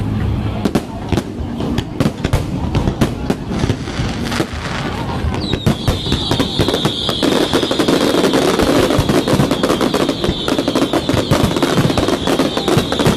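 Fireworks display going off in a rapid, continuous run of bangs and crackles. About five seconds in, the barrage thickens and a steady high whistle joins it.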